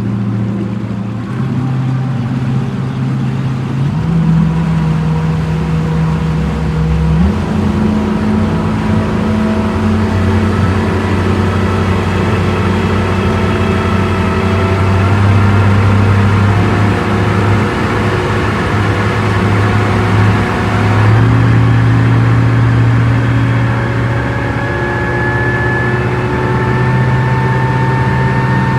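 A motorboat's outboard engine running at speed. Its drone holds steady pitches that shift up or down abruptly every few seconds.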